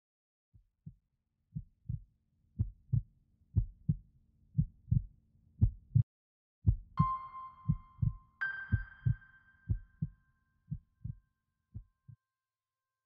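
Slow heartbeat, a paired lub-dub thump about once a second, that grows louder and then fades away. Two ringing musical tones come in over it, the second higher than the first.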